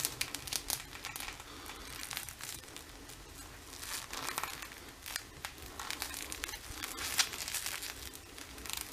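Crinkling, rustling handling noise with many small clicks as a nicked solid copper wire (14-gauge) and its plastic sheathing are bent back and forth by hand to fatigue the wire until it cracks.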